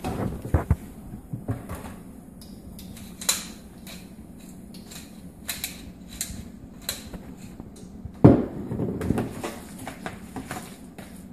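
Hand pepper grinder being twisted over a bowl, a run of dry crunching clicks. A sharp knock about eight seconds in, then a fork scraping and stirring mashed turnip and carrot in a mixing bowl, over a faint steady low hum.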